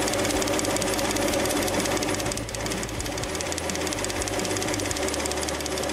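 Petrol V6 engine idling with its oil filler cap off, its valvetrain making a fast, even ticking rattle while it runs on engine oil mixed with water. The rattle seems a bit harder to the owner, a sign of thin, watered-down oil lubricating poorly.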